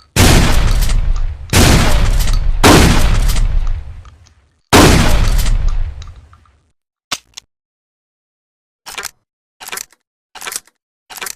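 Trench shotgun sound effect: four loud shots in the first five seconds, each with a long, fading tail. After a pause come two short clicks, then a series of short mechanical clacks about two-thirds of a second apart near the end.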